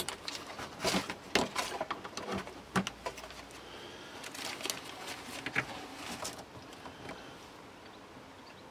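Light clicks and small knocks of multimeter test leads and clips being handled and fitted at a car battery's terminals, busiest in the first few seconds and fading out after about six seconds.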